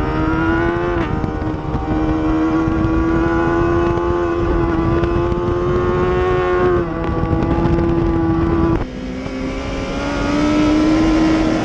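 Racing motorcycle engine running hard at high revs, holding a steady pitch with short drops in pitch about a second in and again around seven and nine seconds in, as it shifts or eases off the throttle. It then climbs again near the end.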